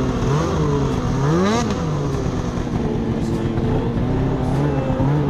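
Snowmobile engine running at a steady cruising speed, with a brief rise and fall in revs about a second and a half in.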